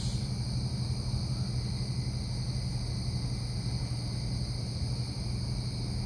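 Night-time chorus of crickets and other insects, a steady high-pitched chirring, over a steady low hum.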